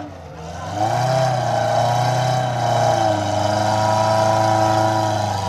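Suzuki Vitara off-roader's engine revving hard under load as it climbs a steep dirt slope. The revs rise about a second in and are held high, wavering up and down.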